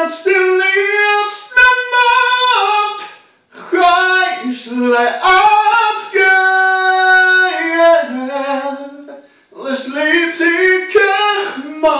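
A lone voice singing unaccompanied in a high register in a small room: three phrases with short breaks between them, the middle one holding a long steady note.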